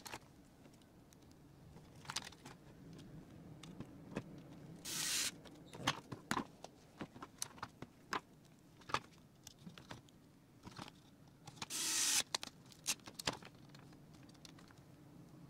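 Scattered small clicks and taps of laptop parts being handled during reassembly of the heatsink and cooling-fan assembly, with two short scratchy rustles, one about five seconds in and one about twelve seconds in.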